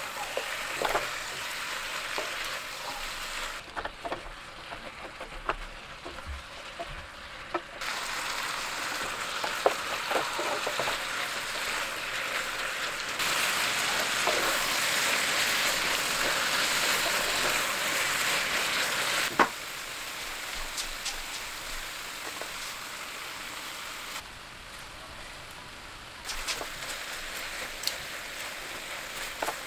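Chicken, cabbage and other vegetables sizzling in a frying pan as a wooden spatula stirs and turns them, with scattered light clicks and knocks of the spatula against the pan. The sizzle is louder in some stretches and softer in others.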